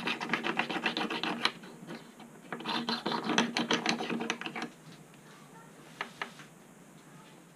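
Abrasive stone rubbing back and forth against the softer-alloy underside of a small lathe's compound slide in quick scraping strokes: light stoning to take off burrs and flatten the contact surface. There are two runs of strokes with a pause between them about 1.5 s in, then two light knocks about 6 s in as the part is set down on a metal plate.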